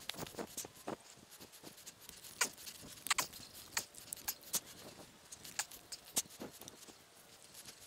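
Paracord being wrapped and pulled tight around wooden poles while a lashing knot is tied: faint, irregular scratches and clicks, several a second.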